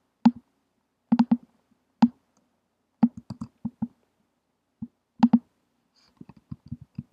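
Computer keyboard keystrokes and clicks, sharp and irregular, in small clusters, with a quicker run of typing near the end.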